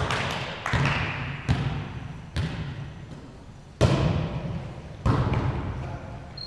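A volleyball being struck and bouncing on a hardwood gym floor: a series of sharp thuds about a second apart, echoing in the large gymnasium, the loudest about four seconds in.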